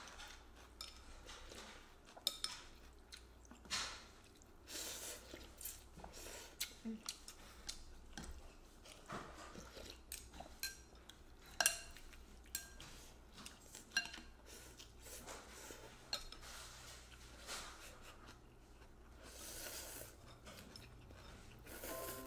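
Quiet eating sounds: chopsticks and spoons clicking against ceramic bowls at scattered moments, with chewing. There are a few short hissy slurps of noodle soup, the last ones near the end.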